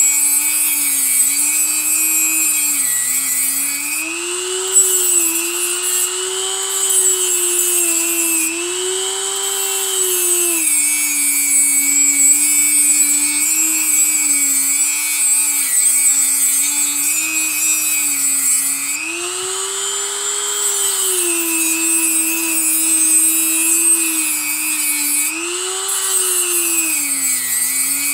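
Dremel rotary tool running at high speed, cutting through the nickel strip links spot-welded across the cells of a Makita lithium-ion battery pack. Its whine dips in pitch several times as the bit bites into the metal and rises again as the pressure eases, with a grinding hiss over it.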